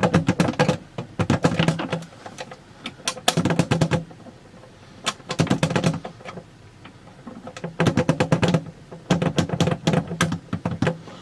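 A metal key rattling and clicking in the pin-type lock of a wooden sewing machine case as it is jiggled and turned in an attempt to pick it. The clicking comes in about six bursts with short pauses between them.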